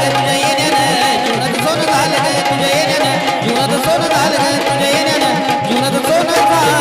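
Instrumental break in a Marathi devotional folk song: hand drums beating a steady rhythm under a melody instrument playing gliding, ornamented notes.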